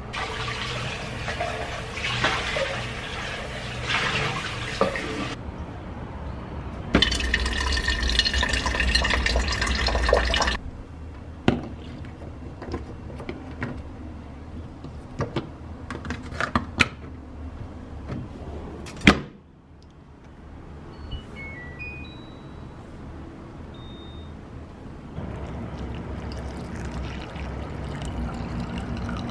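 Kitchen chores in sequence: two stretches of running, splashing water, then scattered clicks and clatter, then a few short electronic beeps. Near the end comes a steady pour of hot water from a glass kettle into a ceramic coffee pot.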